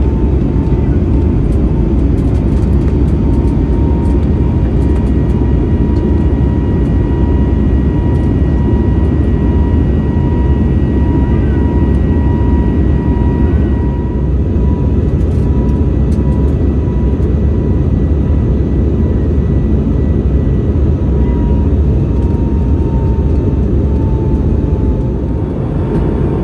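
Cabin noise of an Airbus A320neo with CFM LEAP-1A engines in flight: a loud, steady rumble of engine and airflow noise, with a thin steady whine that wavers slightly in pitch.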